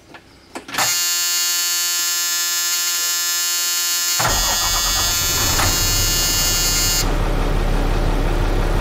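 Caterpillar C7 diesel engine being started. The electric starter motor whines steadily for about three seconds, then the engine catches and settles into a steady low idle.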